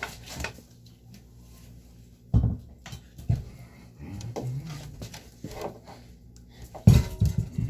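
Hard objects being handled and set down: separate sharp knocks and clatter, with the loudest quick run of knocks near the end.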